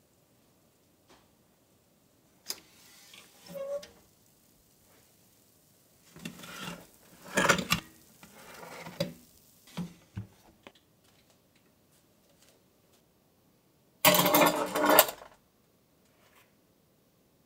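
Metal baking tray being slid out of an oven: a few knocks and scraping clatters of metal on the oven rack, the loudest a scrape lasting about a second near the end.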